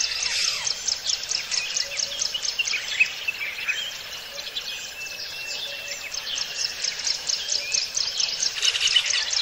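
Rainforest ambience: an insect calling in fast, even pulses, about five a second, with bird calls and chirps scattered over it.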